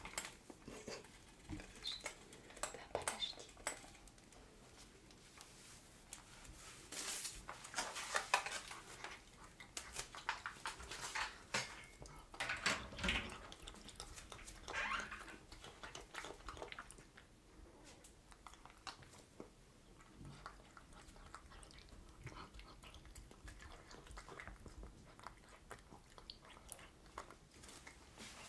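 Maine Coon cat chewing chunks of food from a stainless steel bowl: a run of quick, wet clicking chews, busiest in the middle and quieter toward the end.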